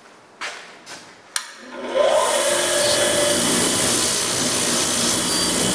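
A sharp click, then an electric bench grinder with a wire wheel starts up: its motor spins up with a rising whine and then runs steadily at full speed.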